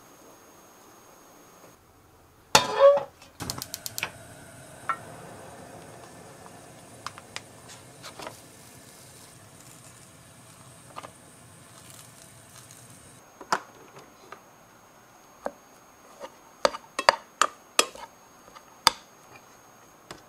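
Kitchen dishes and utensils being handled: a loud clatter about three seconds in, then scattered clicks and taps. A faint steady hiss of water heating in a pan runs through the middle, and a quick run of sharp taps on dishes comes near the end.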